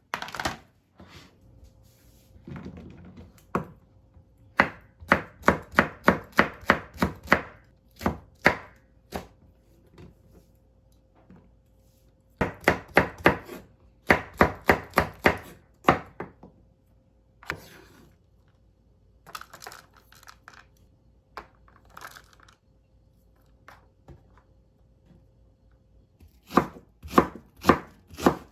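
Kitchen knife chopping food on a cutting board in quick runs of strokes, about three a second, with pauses between the runs.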